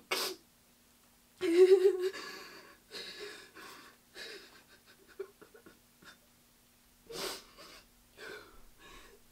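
A woman crying: a voiced sob about a second and a half in, then broken, breathy crying breaths in short bursts with pauses between them.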